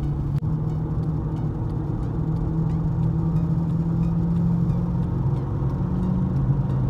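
Steady low drone of a car's engine and tyres at highway speed, heard from inside the cabin, with a single short click about half a second in.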